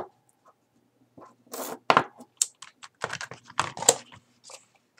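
Product packaging being handled by hand: a run of irregular clicks and rustles as the wrapped batteries and box are worked open, starting about a second in.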